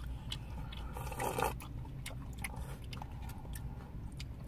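Mukbang eating sounds: chewing sundae gukbap, with scattered small clicks of a plastic spoon and chopsticks in plastic takeout bowls and a brief louder noise about a second in.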